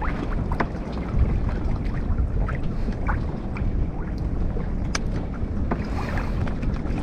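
Wind rumbling steadily on the microphone aboard a moored fishing boat, with scattered light knocks and clicks.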